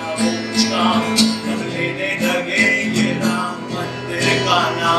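Acoustic guitar strummed steadily as song accompaniment, with a man's singing voice holding a long note over the first few seconds.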